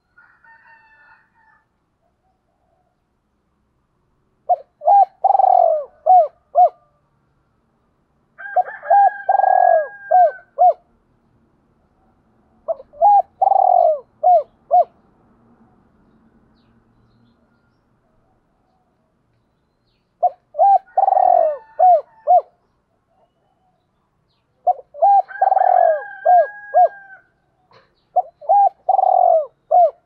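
Spotted dove cooing: six phrases of repeated coo notes, each lasting about two seconds, with pauses of a second or more between them.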